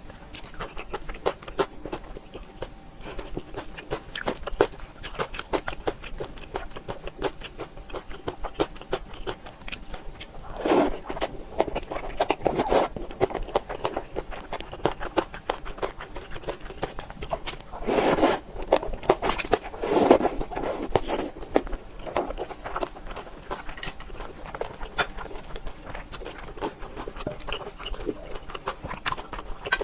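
Close-up eating sounds: a steady stream of chewing clicks and wet mouth noises, with a few louder bursts of chewing about a third and two thirds of the way in.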